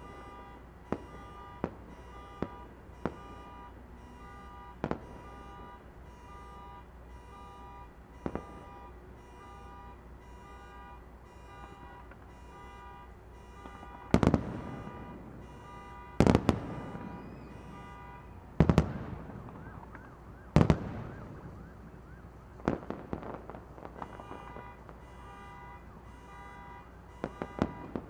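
Distant aerial fireworks bursting. There are small pops in the first few seconds, then four loud booms between about fourteen and twenty-one seconds in, each trailing off in a rumbling echo, and a few smaller bangs after. Under them an electronic alarm beeps about twice a second.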